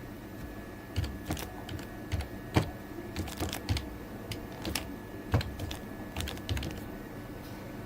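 Typing on a computer keyboard: single keystrokes at an unhurried, uneven pace, a little over one or two a second.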